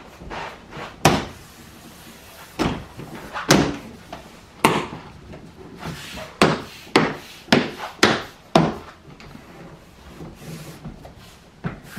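Plastic frunk trim panel on a Tesla Model Y being pressed and tapped down by hand, its push clips seating with a string of sharp snaps and knocks, about one a second at irregular spacing.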